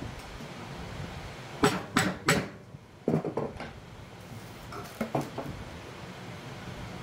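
Metal parts and tools clinking and knocking as a motorcycle wheel hub's collar and bearing are taken out: three quick sharp clinks about a second and a half in, a short clatter around three seconds, and two lighter knocks near five seconds, over a steady background hiss.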